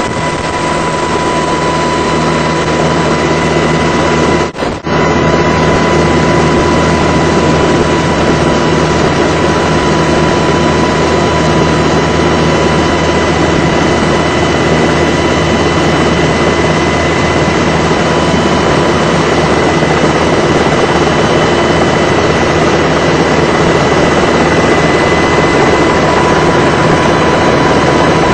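Coast Guard helicopter running steadily, heard from aboard: a constant drone from the rotor and engines with a steady high whine, dipping briefly about four and a half seconds in.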